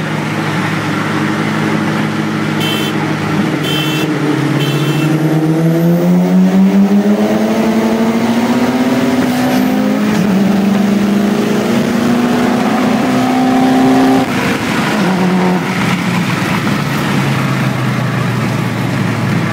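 Turbocharged Mitsubishi Lancer Evolution VIII four-cylinder, heard from inside its cabin, accelerating hard on the highway. Its pitch climbs steadily, dips at an upshift about ten seconds in and climbs again, then falls away suddenly about fourteen seconds in as the throttle closes, settling to a lower cruising note. Three short high chirps sound about three to five seconds in.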